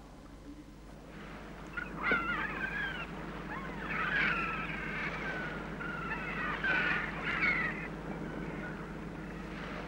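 Gulls calling: a run of harsh, pitch-bending cries from about two seconds in until about eight seconds in, over a low steady hum.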